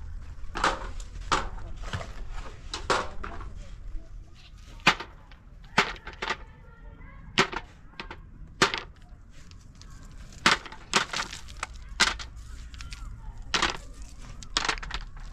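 Sharp clacks of stones knocking against stones, coming irregularly, about one every second, as gravel is picked over by hand.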